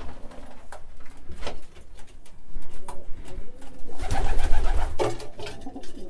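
Racing pigeons cooing in the loft, with a few sharp clicks and a louder rustling stretch about four seconds in.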